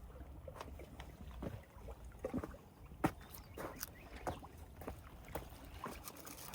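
Careful footsteps and scuffs on a muddy lakeshore: scattered soft, irregular knocks, with a sharper knock about three seconds in.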